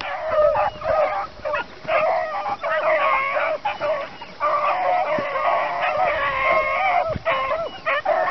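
A pack of beagles baying in full cry while running a rabbit on its scent: many hound voices overlapping almost without a break, with a few brief lulls.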